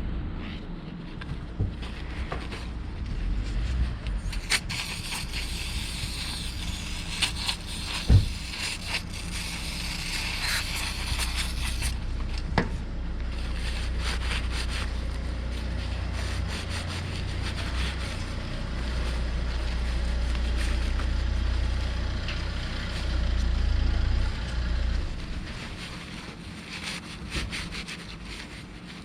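Scraping, rubbing and small clicks of hand work on metal car parts, with a sharp knock about eight seconds in and another a few seconds later, over a low rumble of wind on the microphone.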